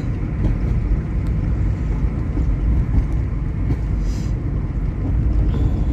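Steady low road noise of a moving car heard from inside the cabin: tyres and engine running at an even street speed.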